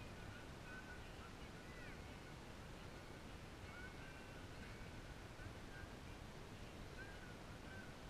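Faint beach ambience: a steady low rumble, with birds chirping and whistling briefly now and then.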